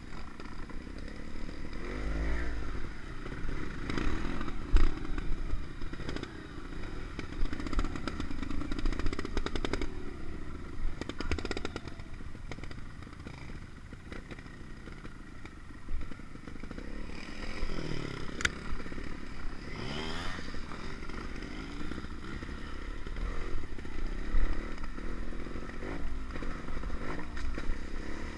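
Trials motorcycle engine revving up and down in short bursts as the bike climbs and descends a rough dirt trail, with knocks and rattles from the bike going over stones.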